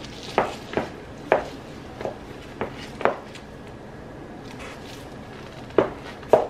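Irregular light taps and knocks from a person moving about while putting on and handling a leather handbag with a chain strap: about six in the first three seconds, then two more near the end.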